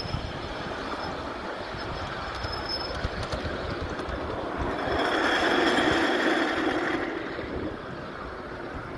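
1/8-scale ride-on miniature train rolling along its track, steel wheels running on the rails. It grows louder for about two seconds midway as it rounds a curve.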